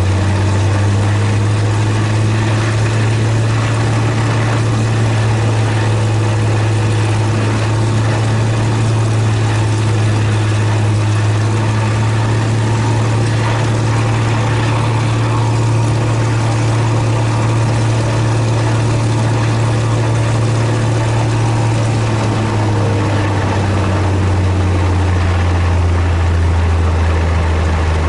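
Helio Courier's Lycoming GO-480 geared six-cylinder engine and propeller running steadily, heard from inside the cabin. The engine speed steps up right at the start and drops back to a lower speed about two-thirds of the way through.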